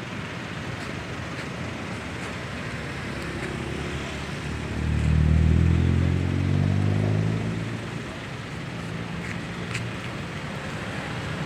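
Roadside traffic noise. A motor vehicle's engine passes close by from about four and a half to eight seconds in, loudest for about two seconds, then fades.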